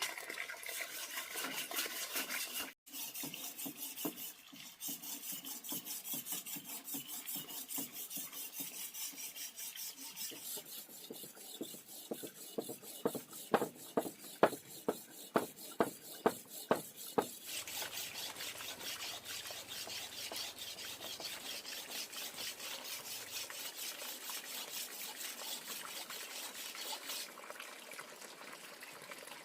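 Fast, even rubbing strokes, with a run of about ten sharp knocks, roughly two a second, in the middle.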